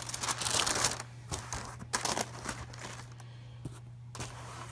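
Packaging in a sneaker box rustling and crinkling as the box is opened and the shoes are uncovered. The rustle is loudest and most continuous for about the first second, then turns to a few short crinkles and clicks.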